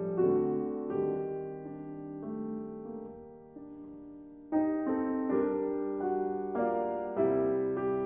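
Background music on piano: slow, sustained chords, softer for a while, with fuller and louder chords coming back about halfway through.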